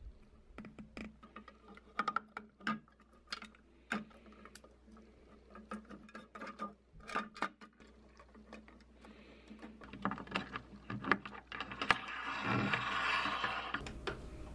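Small bolts, spacers and plastic knob nuts clicking and tapping against a clear acrylic router bit guard as they are threaded on by hand, in many separate light clicks. Near the end a longer scraping rub as the guard is fitted to the aluminium fence.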